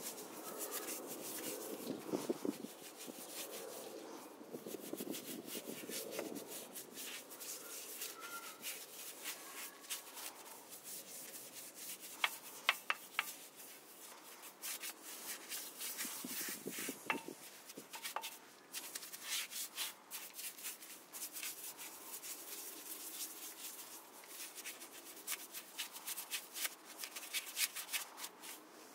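A detailing brush scrubbing a wet brake caliper. The bristles make faint, irregular scratchy strokes, with a few sharp clicks along the way.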